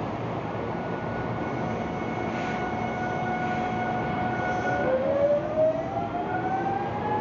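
Hankyu electric train running over a steady rushing noise, its motor drive giving a steady whine. About five seconds in, a rising whine of several tones sets in as the train accelerates.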